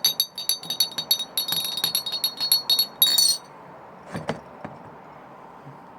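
A teaspoon stirring tea in a glass: a rapid run of clinks all ringing at the same high pitch, ending in a brief flurry about three seconds in. A soft knock follows about a second later.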